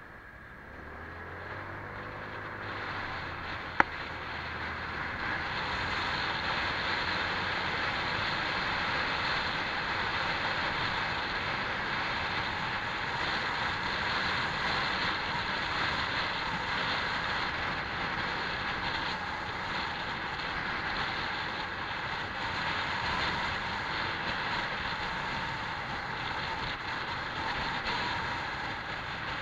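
Honda PCX scooter on the move, its engine note soon covered by wind and road noise that builds over the first few seconds and then holds steady. There is a single sharp click about four seconds in.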